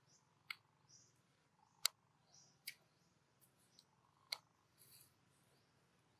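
Faint, near-silent scene broken by about four short, sharp clicks and a few soft rustles as a monkey handles and bites at a small round fruit, sitting on dry leaf litter.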